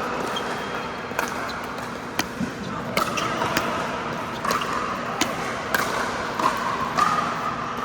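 Pickleball paddles hitting the plastic ball: a string of sharp pops at irregular spacing, sometimes two close together, over a steady background noise.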